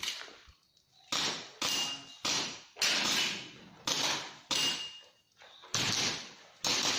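Airsoft pistol firing about eight shots in an uneven string, each a sharp crack with a short tail, with a faint metallic ring after some shots.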